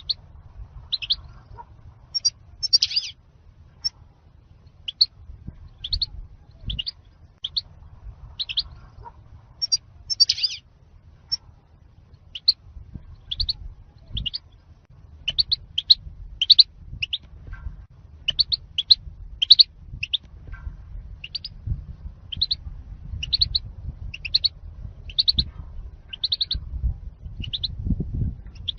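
European goldfinch giving short, high chirping calls, one or two a second and irregularly spaced, played as a lure recording for trapping and song-training goldfinches. A low background rumble runs underneath.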